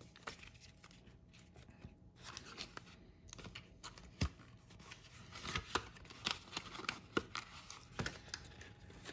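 Paper leaflets and the cardboard box insert being handled: light paper rustling with a run of small taps and clicks, busier in the second half.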